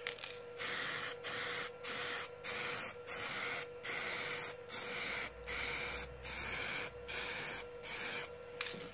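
Cobra high-pressure aerosol can of matte clear coat spraying in a quick run of short hissing bursts, about a dozen, as a lacquer coat is laid on.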